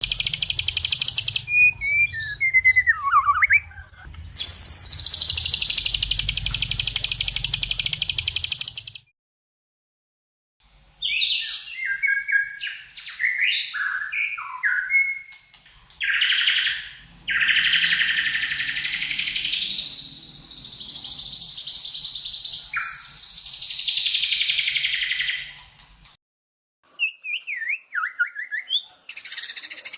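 Songbird calls in a masteran training recording, strung together as fast rattling chatters and sweeping whistled glides. The sound drops out abruptly to silence twice, at about nine seconds and about twenty-six seconds.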